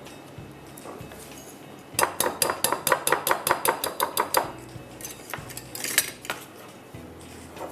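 Wire balloon whisk clinking against a glass mixing bowl: a rapid run of ringing strikes, about six a second for a couple of seconds, then a few looser clinks about a second later.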